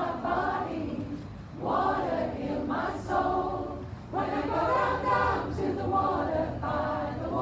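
Massed choir of over a hundred mixed voices singing a cappella, in phrases with two short breaks, about one and a half and four seconds in.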